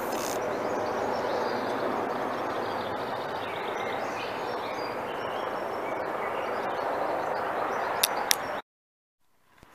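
Steady outdoor background noise with small birds chirping faintly over it. Two sharp clicks come about eight seconds in, and then the sound cuts off abruptly.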